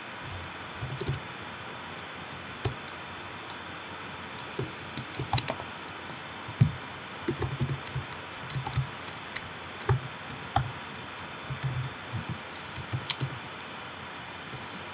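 Typing on a computer keyboard: irregular keystrokes in short bursts, over a steady background hiss.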